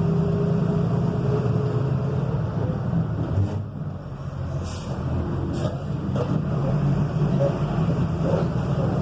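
Volkswagen 17.210 truck's diesel engine running with a steady drone. About three and a half seconds in, the engine note drops for about a second and a few short hisses follow, then the drone returns.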